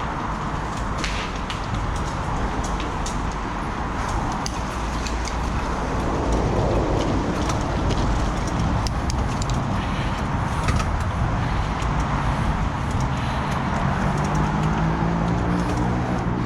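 Wind rushing over the microphone with tyre and rattle noise from a mountain bike on the move, scattered with small clicks. A motor vehicle's engine comes up near the end.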